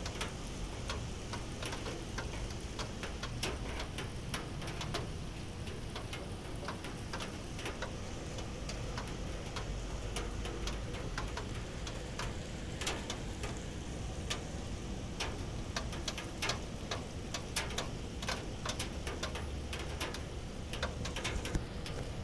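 Light summer rain: scattered raindrops ticking irregularly on a hard surface over a steady low background.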